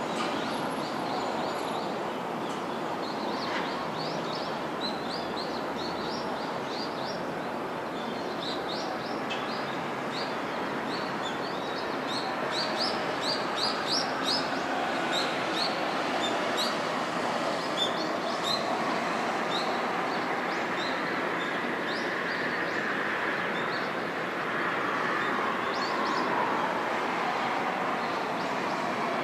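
Distant jet airliner (an Embraer 170) on approach, heard as a steady wash of engine noise, with a whine that falls in pitch over the last several seconds. Small birds chirp over it repeatedly through the first two-thirds.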